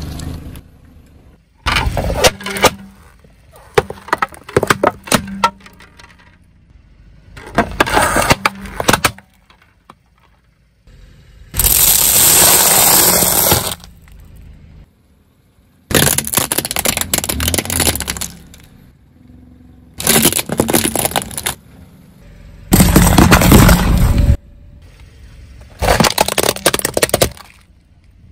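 Car tyre rolling over and crushing objects, one after another: a string of about eight cracking, crunching bursts, each a second or two long, split by brief quieter gaps. The burst about twelve seconds in is a steadier hiss.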